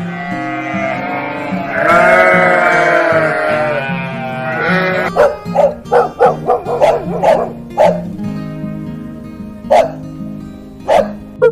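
Animal calls over background music: one long, wavering call, then a quick run of short, sharp calls about three a second, and two more single calls near the end.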